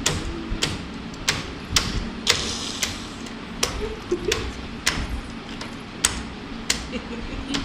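Computer keyboard keys struck one at a time by a baby: sharp separate clacks, about one or two a second at an uneven pace.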